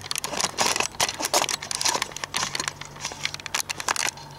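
Rustling and clicking handling noise from a hand-held camera being moved about, with shirt fabric brushing over the microphone; it stops near the end.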